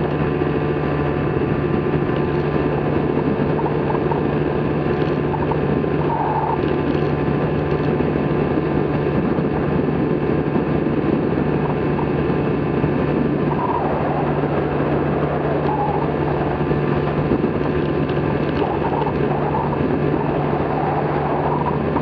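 The engine and pusher propeller of a Flycycle Mark 5 microlight running steadily under power in flight, giving a constant drone. Wind rushes past it the whole time.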